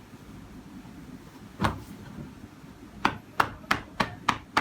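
Sharp slapping strikes of a practitioner's hands on a patient's body during a bone-setting massage: one single strike, then from about three seconds in a quick even series of strikes, about three a second.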